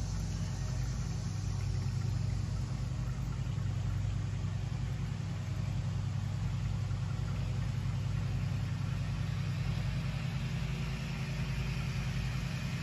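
A steady low mechanical hum, like an engine or motor running, is the loudest sound throughout. Under it, a thin stream of vodka trickles from the bottle through a metal funnel into a small oak barrel.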